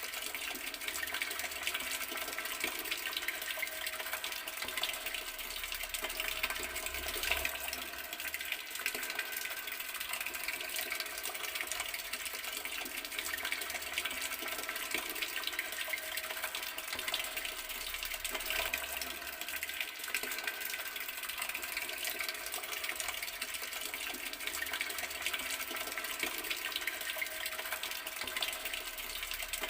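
Water running steadily from a garden tap, an even, unbroken rush of flowing water.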